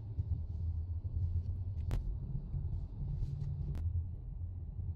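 Steady low rumble of a car's engine and tyres on the road, heard from inside the cabin while driving. Two short sharp clicks come about two seconds in and again near four seconds.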